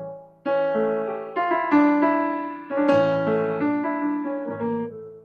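Piano playing a short instrumental phrase of struck chords left to ring, with a brief break about half a second in, dying away at the end.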